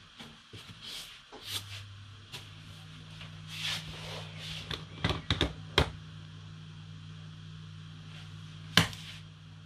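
Kitchen handling noises: light clicks and rustles, and a steady low hum that comes on about a second and a half in. Near the end comes one sharp tap of an egg knocked against the rim of a plastic mixing bowl.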